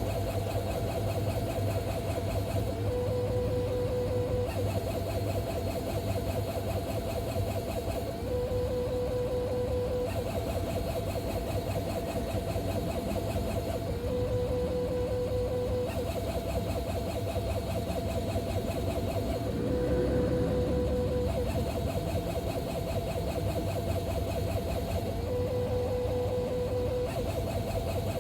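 Strange repeating tonal noise from a DS7 Crossback: a steady whine that drops to a lower pitch for about a second and a half every five or six seconds, then returns to the higher pitch. A steady low rumble runs underneath.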